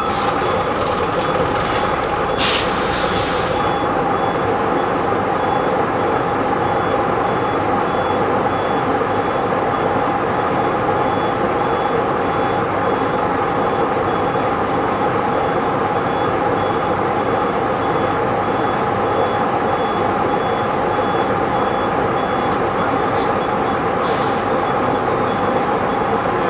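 Bristol VR double-decker bus running steadily, heard from inside the passenger saloon: a steady drone with a constant mechanical whine. There are two brief hisses, about two and a half seconds in and again near the end.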